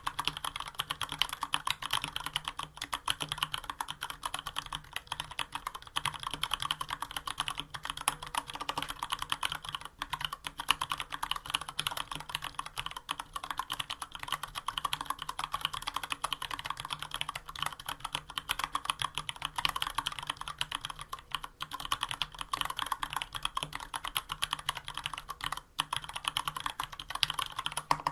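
Continuous fast typing on a Varmilo VA104M full-size mechanical keyboard with stock, unlubricated Cherry MX Brown tactile switches and PBT keycaps: a dense stream of keystroke clacks with brief pauses.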